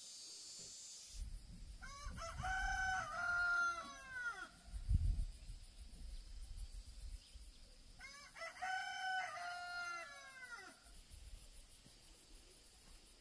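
A rooster crowing twice, some six seconds apart, each crow a long call that slides down at the end. A low rumble runs under the first crow, with a thump about five seconds in.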